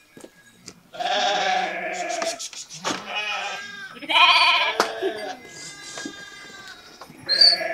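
A flock of sheep bleating, about four loud, quavering calls one after another.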